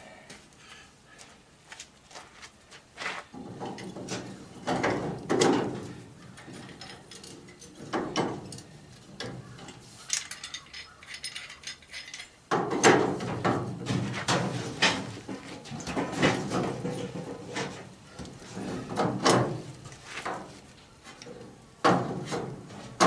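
Metal hand tools clanking and rattling as a large pipe wrench is handled, with irregular clicks and knocks.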